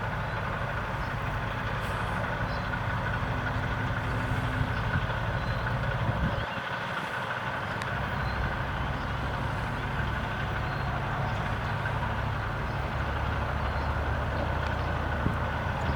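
A motor engine running steadily at idle, a low even hum with a light hiss above it. The hum drops out abruptly about six and a half seconds in and picks up again straight after.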